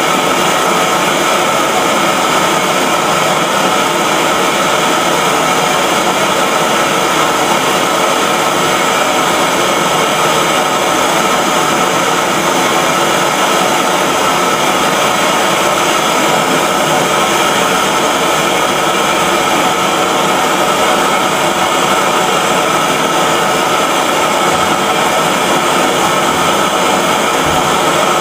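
MAPP gas hand torch burning with a steady, even hiss, its flame held on a brass fitting to melt the old solder joint so the copper line can be pulled apart.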